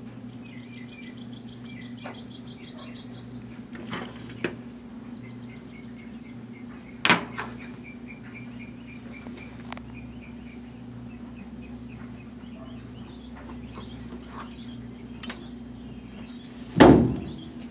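Quiet bench work during soldering: a steady low hum underneath, with short runs of bird chirps in the background. A sharp click about seven seconds in and a louder knock near the end come from handling on the bench.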